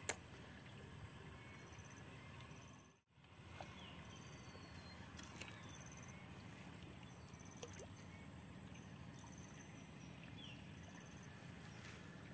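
Near silence: faint outdoor ambience, a steady low hiss with a few faint, short high chirps scattered through, and a brief dropout about three seconds in.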